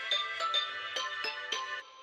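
A short musical jingle of about six struck, bell-like notes in quick succession. It stops near the end, leaving the last notes ringing away.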